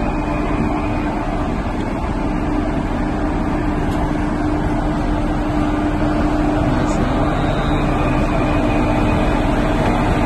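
WAP-4 electric locomotive moving slowly past at close range, giving a steady hum with one constant tone running through it. It grows slightly louder as it comes nearer.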